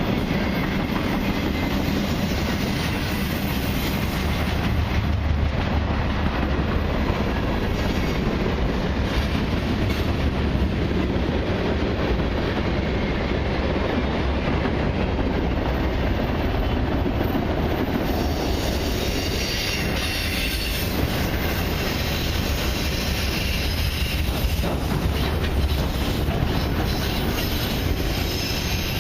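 Freight cars of a long CN mixed and autorack train rolling past, wheels clattering over the rail. From about two-thirds of the way through, a high wheel squeal joins in.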